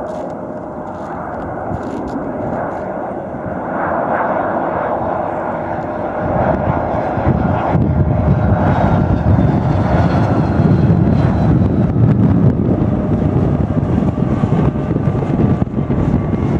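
Boeing 757-232 airliner on final approach, its twin Pratt & Whitney PW2037 turbofans growing louder as it nears: a whine over a deep rumble that swells strongly about halfway through.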